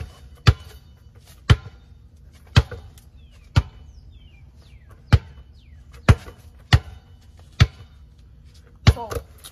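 Wilson basketball dribbled hard on the ground, about ten sharp bounces at uneven spacing, with longer gaps where the ball is held between bounces: hesitation ('hesi') dribbles.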